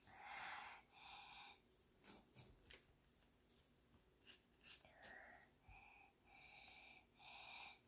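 Near silence: quiet room tone with a few faint breathy sounds and scattered light ticks.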